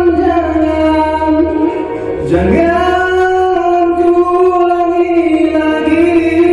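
A man singing solo into a microphone, holding long sustained notes. He takes a short breath about two seconds in, then slides up into the next note and holds it.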